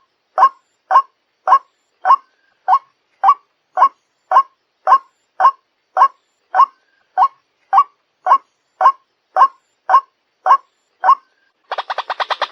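White-breasted waterhen (ruak-ruak) calling: one short, harsh note repeated evenly about twice a second. Just before the end, a much faster, denser run of notes takes over.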